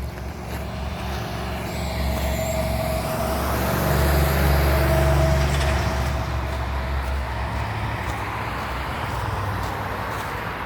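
A road vehicle passing close by: its rumble and hiss swell to a peak about halfway through and then ease off, with a steady whine through the middle.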